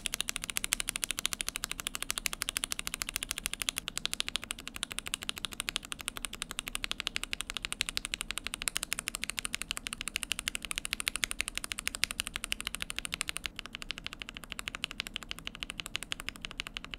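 Akko Jelly Black and Gateron Box Ink Black V2 linear mechanical keyboard switches clacking as they are pressed rapidly and evenly, about eight to ten strokes a second. This is a lubed-versus-unlubed sound test. The top end of the clacks dulls slightly about three-quarters of the way through.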